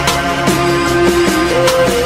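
Electronic music with a steady beat.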